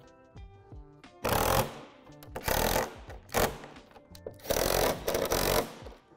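Cordless drill/driver running in four short bursts, the last the longest, driving bolts through a plastic playset wall panel into the pole bracket, over light background music.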